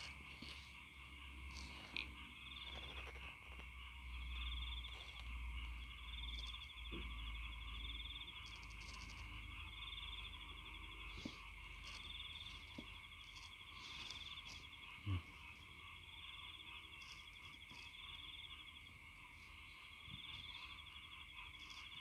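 Faint background chorus of calling insects and frogs: a steady high chirring with a higher trill repeating every two seconds or so. A single soft thump comes about fifteen seconds in.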